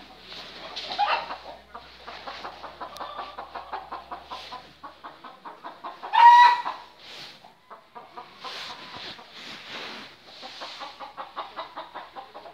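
Chickens clucking in short, quickly repeated notes, with one much louder call about six seconds in.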